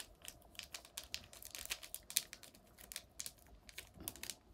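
Small paper sachet of slime powder crinkling in a child's fingers as it is emptied into a bowl of water: a faint, irregular run of crackly clicks.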